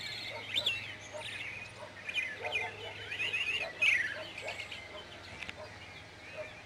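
Small birds chirping, many short overlapping calls, with one quick falling call about four seconds in.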